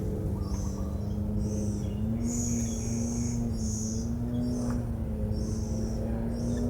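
Bird chirping in short, high-pitched notes repeated about twice a second, over a steady low hum.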